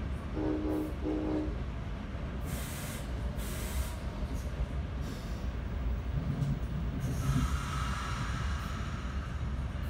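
Two short blasts of the cab car's Nathan K5LA horn, heard muffled from inside the train over the steady rumble of the multilevel coach rolling on the rails. A couple of seconds later come bursts of hiss, and about seven seconds in a brief high wheel squeal.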